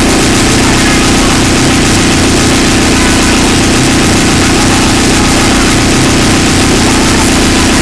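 Harsh noise passage in a lolicore (breakcore) electronic track: a loud, unbroken wall of distorted noise over a steady low drone, with no beat.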